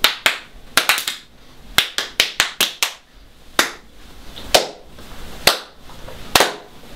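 Two people clapping their hands as a performance in a loose, uneven rhythm: sharp claps come in quick clusters separated by short pauses.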